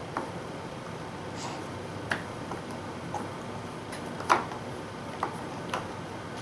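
Light plastic taps and clicks from a baby's hand knocking the toy on a plastic activity-seat tray, about six scattered over several seconds, the loudest a little past four seconds in.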